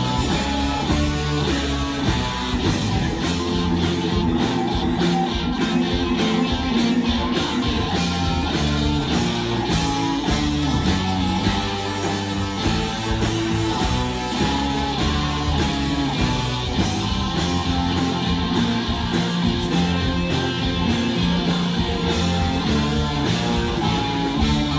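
Live rock band playing loud and steady: electric guitars, bass, drums and keyboards with a horn section of trumpet, trombone and saxophone.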